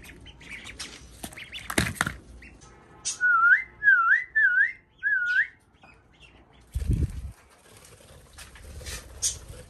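Four short, clear whistled notes in a row, each dipping and then rising in pitch, starting about three seconds in, over faint bird chirps. A dull thump follows about seven seconds in.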